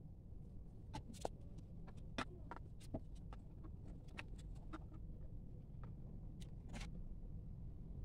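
Scattered light clicks and taps of PVC pipe and plastic fittings being handled and fitted together, over a low steady hum. The clicks come irregularly, thickest in the first half, with a last cluster near the end.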